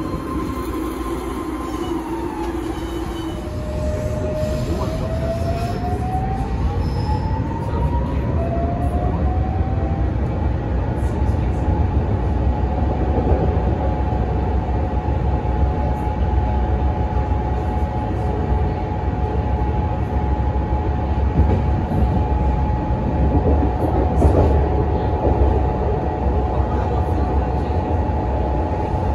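BART Legacy A2 car pulling away and accelerating. Its motor whine rises in pitch in two glides over the first ten seconds, then holds a steady high whine over the rumble of the wheels on the track, heard from inside the car.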